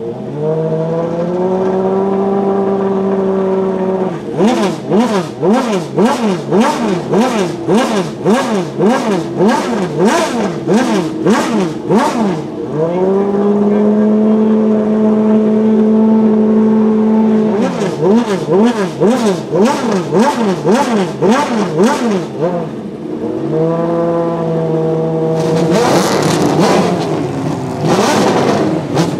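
BMW V12 LMR's naturally aspirated V12 race engine held at a steady raised idle, then blipped in quick throttle revs about twice a second. It settles back to a steady hold for a few seconds, blips again, and near the end gives a few harder, longer revs.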